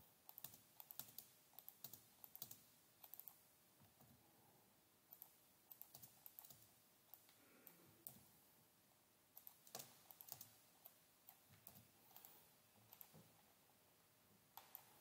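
Faint computer keyboard typing: short keystroke clicks in scattered bursts with pauses between them.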